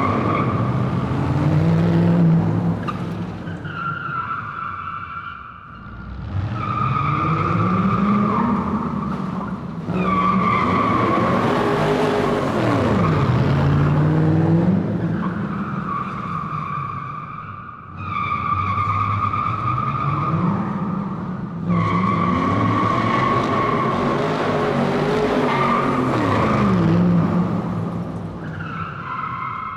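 Car tires squealing with a sustained high screech, over an engine whose pitch rises and falls. It comes in repeated stretches of a few seconds that break off and start again.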